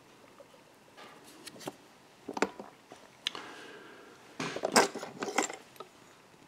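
Light handling noise from fly-tying tools at the vise: scattered small clicks and metallic taps, with a quick cluster of sharper clicks about four and a half to five and a half seconds in.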